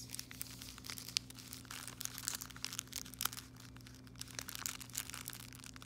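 Plastic packaging crinkling and crackling as it is handled and pulled open, a quick irregular scatter of small crackles.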